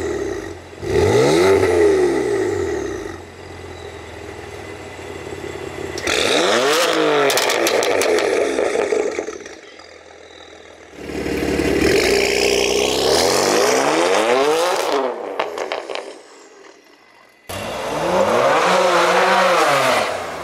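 BMW M4's twin-turbo straight-six, fitted with catless downpipes, a stage 2 tune and an AWE Tuning non-resonated SwitchPath exhaust, free-revved three times while standing, each rev rising and falling with crackles as the revs drop. The exhaust flaps are closed for the first two revs and open for the third. Near the end it accelerates along the street.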